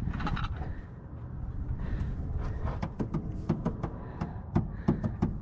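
A run of sharp, light clicks and knocks, about three a second, starting about halfway through: hands and tools working on parts in a car's engine bay.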